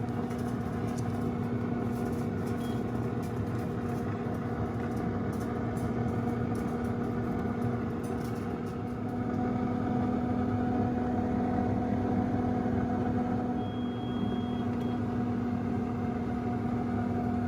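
Instant Pot Vortex Plus air fryer oven running on bake, its convection fan giving a steady hum with a few even tones, a little louder from about halfway through.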